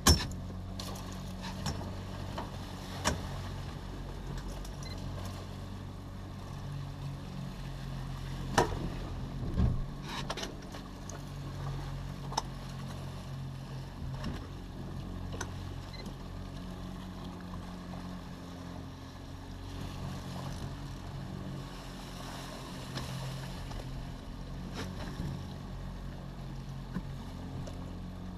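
Small fishing boat at sea with its outboard motor running steadily low, over wind and water noise, and a few scattered sharp knocks and clicks.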